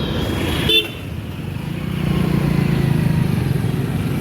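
Road vehicle engine running with a steady low rumble, with a short high beep about three-quarters of a second in.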